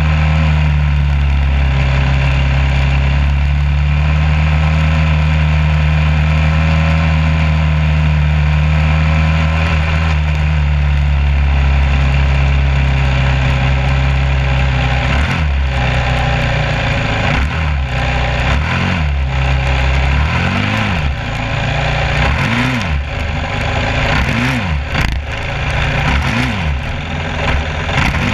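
An engine running steadily, then from about halfway revved up and down again and again, each rise and fall lasting a second or two, with scattered knocks.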